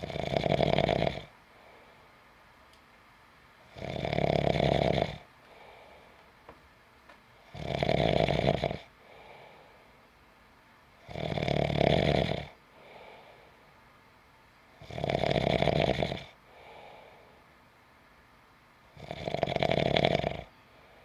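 A sleeping person snoring in a slow, regular rhythm: six loud snores about every four seconds, each about a second long, with a faint breath out after each.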